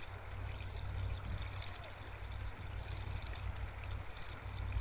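Outdoor ambience dominated by wind rumbling on the microphone, with a faint steady high-pitched ringing above it.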